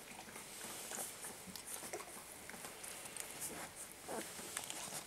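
A litter of young puppies squirming against their mother on a blanket, giving faint squeaks amid soft rustling and small clicking sounds.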